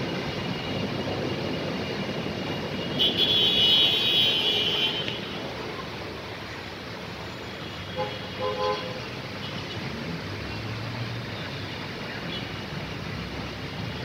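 Traffic on a wet street: a steady hiss of tyres through water and rain. About three seconds in, a louder shrill sound lasts roughly two seconds. Around eight seconds in come two short car-horn toots.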